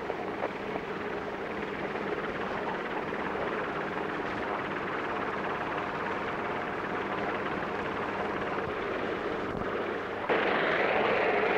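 Helicopter running steadily, a continuous engine and rotor noise, which gets suddenly louder near the end.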